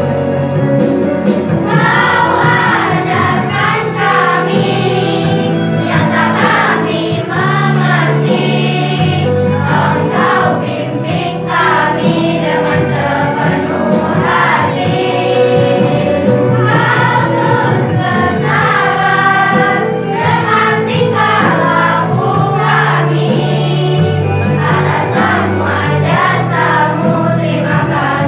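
A choir singing a song over instrumental accompaniment, with held bass notes that change every few seconds.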